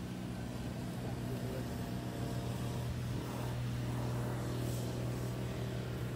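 A steady low engine hum, with a faint whine that rises and falls around the middle.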